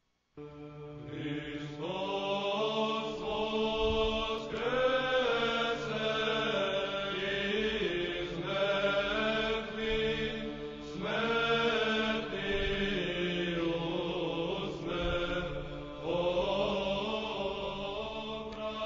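Orthodox church chant: voices singing slow melodic phrases over a steady held drone, fading in just after the start.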